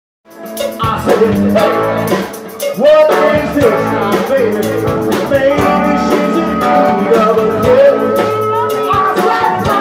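A live band playing: electric guitars, bass guitar, drum kit and keyboard, recorded on a phone's microphone in the room. The music starts abruptly just after the beginning and then runs on at a steady loud level.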